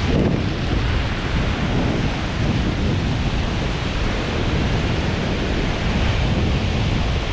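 Wind buffeting the microphone with a deep, unbroken rumble, over the steady wash of small surf breaking on a sandy beach.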